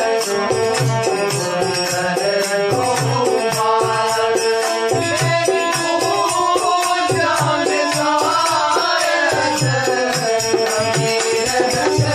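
Instrumental interlude of a Hindi devotional bhajan: a melody line over a fast, steady percussion beat with repeated low drum strokes.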